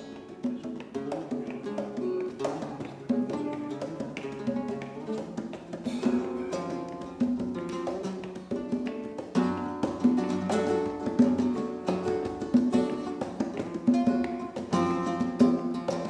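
Flamenco guitar playing: a quick stream of plucked notes and chords.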